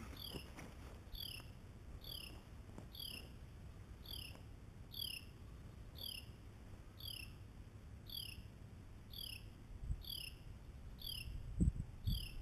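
Faint, high chirp repeating about once a second, with a couple of low thumps near the end.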